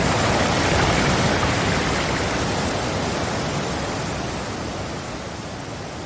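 Waterfall sound effect: a steady rush of falling water that slowly fades away.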